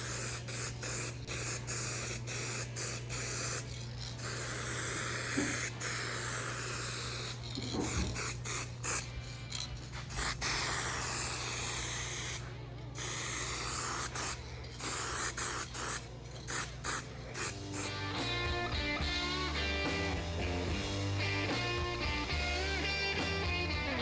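Aerosol spray-paint can spraying in repeated bursts of hiss, painting the rods black; surf-rock music with a steady beat comes in near the end.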